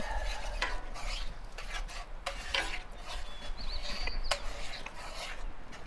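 A spoon stirring and scraping sour cream into a stroganoff sauce in a cast iron skillet, in irregular strokes.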